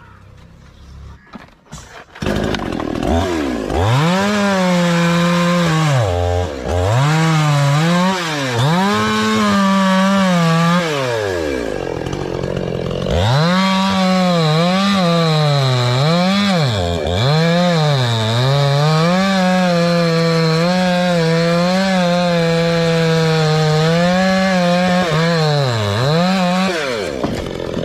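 Chainsaw running loud at high revs, its engine speed repeatedly dropping and climbing back up. It starts about two seconds in and stops abruptly at the end.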